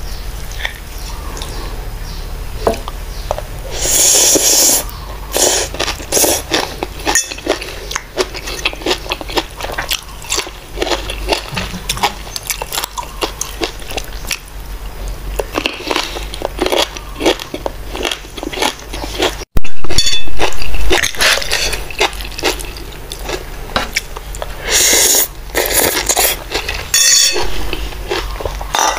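Close-up eating sounds: a metal spoon or fork clinking and scraping on a ceramic plate, with crunching and chewing of raw vegetables, over a steady low hum. About two-thirds through there is a short loud burst of handling noise.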